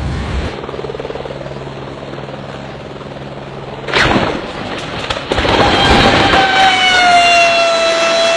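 A steady low engine drone, cut by a sudden loud bang about four seconds in. Then louder rushing noise with a steady high whine that drops slightly in pitch.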